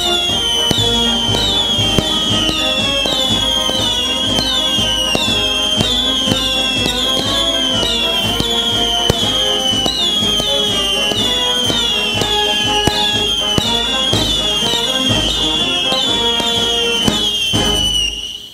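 Spinning whistling fireworks shrieking overhead: a high whistle that falls in pitch, repeating about twice a second as they whirl, with a few sharp cracks. The sound fades out near the end.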